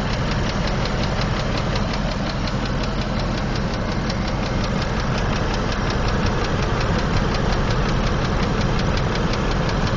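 2003 Land Rover Discovery II engine idling with a fast, even ticking over its running note. The owner suspects the lifters or an exhaust leak at the manifold or headers, and has added Lucas oil stabilizer, which calmed it only a little.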